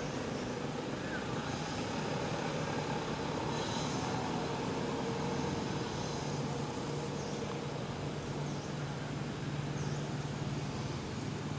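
Steady outdoor background noise with a low engine-like hum that grows stronger about halfway through, and a few faint high chirps now and then.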